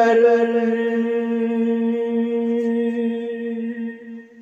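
A man's unaccompanied voice holding one long, steady note, the closing note of a naat (an Urdu devotional poem in praise of the Prophet), fading out near the end.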